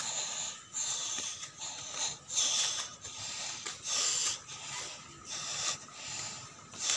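A person walking on a paved street, with a soft hissing noise that swells and fades about once a second, in time with the steps.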